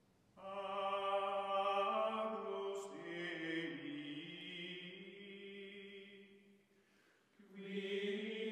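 Outro music: a chant-like choir of held voices that swells in about half a second in, fades out near seven seconds, and swells again near the end.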